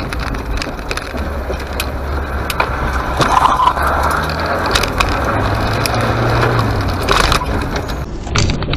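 Car on the road: steady engine and road noise with scattered sharp clicks and knocks throughout, a little louder about three to four seconds in.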